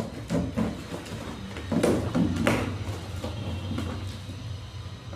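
Packaging of a new ceiling fan being handled during unboxing: a run of knocks, scrapes and rustles, loudest about two seconds in, over a steady low hum.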